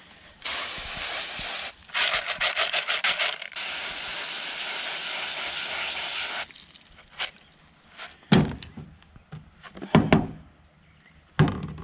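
Garden hose spray nozzle spraying water onto lead air-rifle slugs in a plastic colander, first in short spurts and then steadily, cutting off about six and a half seconds in. Three knocks of plastic bowls being handled follow.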